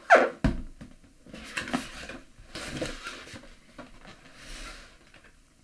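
Cardboard box being handled and opened: two sharp knocks near the start, the second with a dull thud, then scattered rustling and scraping of cardboard as the lid is lifted.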